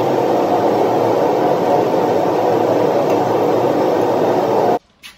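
A loud, steady rushing noise with no pitch or rhythm, cutting off suddenly near the end.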